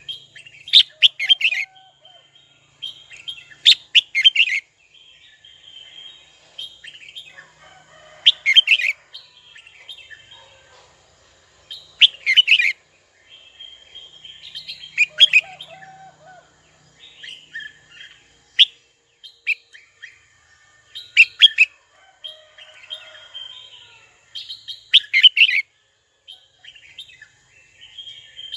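Red-whiskered bulbul singing: short, loud phrases of rapid whistled notes every few seconds, with softer chattering between them.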